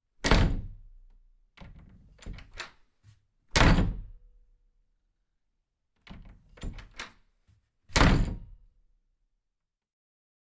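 Three loud, heavy thuds about four seconds apart, with clusters of smaller knocks and rattles between them.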